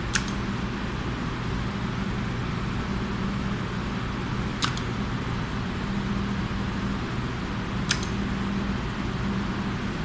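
Momentary push buttons pressed in turn on a relay lamp-control circuit. Three sharp double clicks come as the button and the relay it drives switch over: one near the start, one about halfway and one about two seconds before the end, over a steady low hum.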